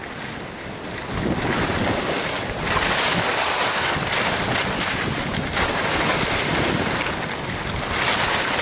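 Wind rushing over the camera's microphone, mixed with skis scraping over packed snow, while skiing down a groomed piste. The noise rises and falls as the skier moves.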